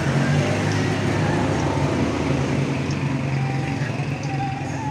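A motor vehicle engine running steadily close by, a low continuous hum, with faint voices underneath.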